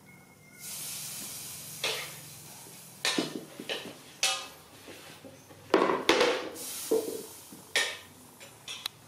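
A plastic chair lying on the floor knocking and clattering against concrete as a baby monkey climbs on it and pushes it about: irregular hollow knocks, the loudest cluster about six seconds in. A steady hiss runs through the first couple of seconds.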